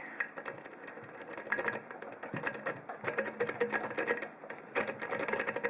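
Rapid metallic clicking and scraping of a triple-peak rake being scrubbed in and out of the keyway of an old five-pin ASSA padlock under light tension, the pins chattering against the rake. The clicking gets busier about a second and a half in.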